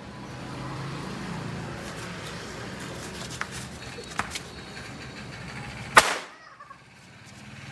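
A single firecracker exploding with one sharp, loud bang about six seconds in, after a few faint clicks.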